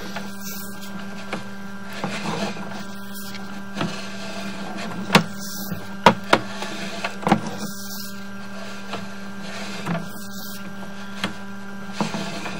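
Sewer inspection camera rig being fed down a drain line: a steady electrical hum with irregular clicks and knocks from the push cable and camera head.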